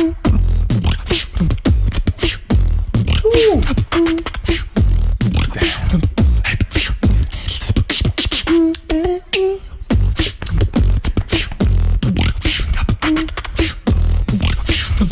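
Solo beatboxing: rapid vocal kicks, snares and hi-hat clicks over deep bass hits, with short sung tones woven in and a held note about nine seconds in.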